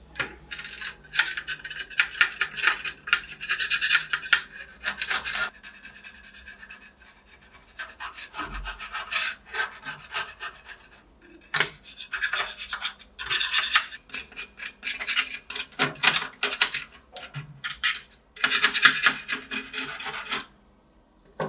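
Flat metal scraper blade scraping a blistered black coating off a metal model car body shell, in repeated rasping strokes of varying length with short pauses between them.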